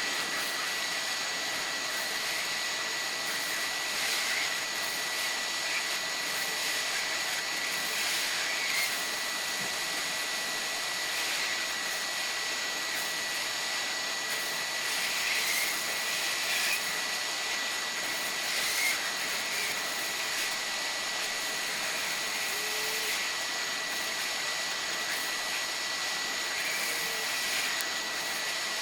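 Hot air rework station blowing steadily onto a BGA chip during reflow: an even rushing hiss with a thin steady whine in it.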